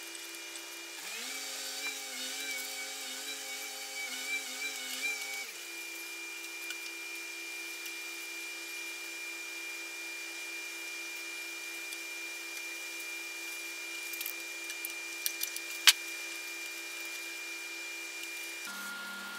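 Ambient synth music of steady held tones, with a wavering passage of added tones early on between about one and five seconds in. A single sharp click sounds late on.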